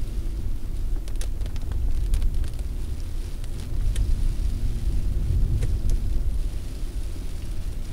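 A car driving on a wet road in rain, heard from inside the cabin: a steady low rumble of road and engine noise, with a few scattered sharp ticks.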